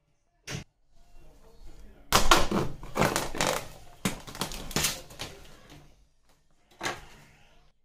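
Clear plastic film on a meat tray crinkling and crackling as it is peeled back by hand. The crackling is loudest from about two to six seconds in, with a short crackle near the end.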